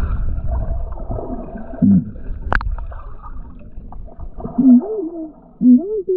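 Sound heard through an underwater camera: low bubbling and water rumble, a sharp click a little past halfway through, then several short, muffled, voice-like calls that rise and fall in pitch, loudest near the end.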